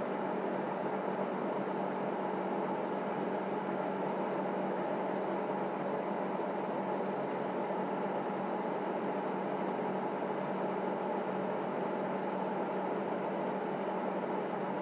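A steady, even hum and hiss with a low tone running under it, unchanging throughout.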